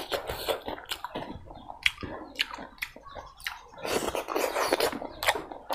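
Close-miked eating sounds of hand-eating rice with pork curry: sharp wet clicks and squishes as fingers knead the rice and curry, then a mouthful taken and chewed. The densest, wettest sounds come about four seconds in.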